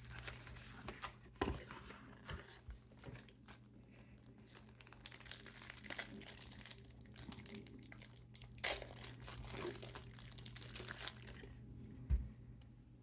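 Packaging of a Magic: The Gathering Secret Lair card set being torn open and crinkled by hand in a rapid series of sharp crackles that stop shortly before the end, followed by a soft thump. A faint steady hum runs underneath.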